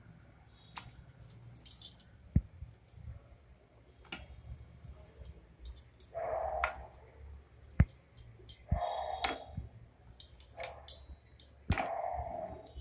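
Dough being rolled into small balls between the palms: a short rubbing sound about every three seconds, with a couple of sharp clicks between them.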